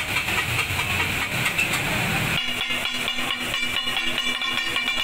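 Chopped meat sizzling on a large hot iron tawa griddle, a steady hiss of steam after liquid is poured on. About two and a half seconds in it changes suddenly to rapid rhythmic clanging of flat steel spatula blades chopping on the griddle, the taka-tak beat, each strike ringing briefly.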